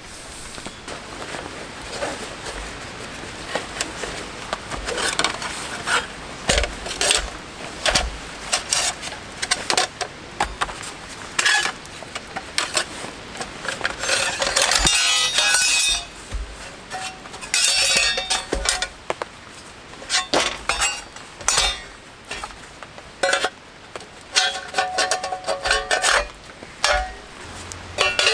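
Metal camp cookware and gear being handled: repeated clinks, knocks and clatter, with a few brief ringing tones near the end.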